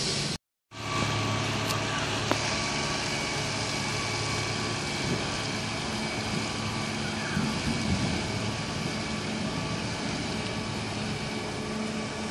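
Steady engine hum over outdoor background noise. The sound cuts out completely for a moment about half a second in, then comes back at the same level.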